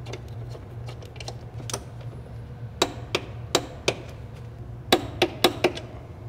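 Sharp metallic clicks in irregular clusters from a ratcheting torque wrench tightening the 14 mm bolts of a car's transmission mount lower bracket to 30 foot-pounds, over a low steady hum.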